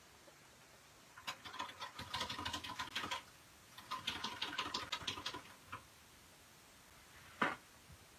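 Two runs of rapid clicking strokes, about ten a second, each lasting under two seconds, then a single sharp knock near the end.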